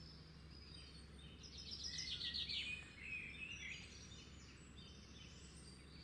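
Faint birds chirping, a quick run of high chirps from about a second and a half in that trails off after three seconds.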